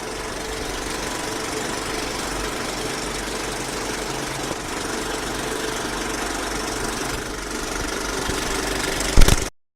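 Steady machine-like drone, an even noise with a few faint steady tones running through it. About nine seconds in comes a short loud knock, and then the sound cuts off abruptly.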